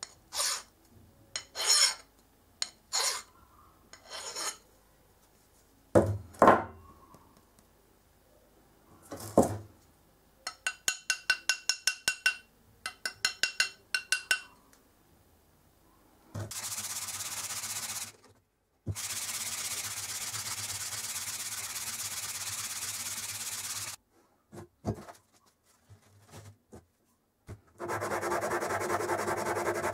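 A flat hand file rasps across the steel head of an old First World War railroad hammer. First come single strokes, then a quick even run of short strokes that make the steel ring. After that a steady hiss starts and stops. Near the end comes a steady rubbing as the head is worked back and forth by hand on abrasive.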